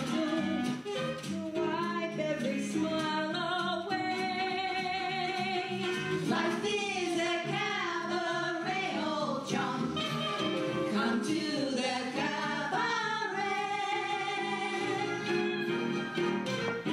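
Singing with musical accompaniment: voices holding long, wavering notes with vibrato, the pitch sliding up and down.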